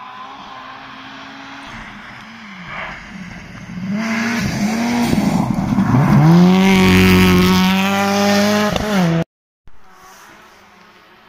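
Rally car engine approaching and passing close at high revs, its pitch dipping and rising several times before holding high and loud. It cuts off suddenly near the end, leaving a fainter engine sound.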